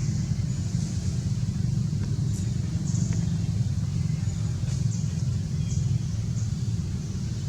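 A steady low rumble throughout, with a few faint, short high chirps over it.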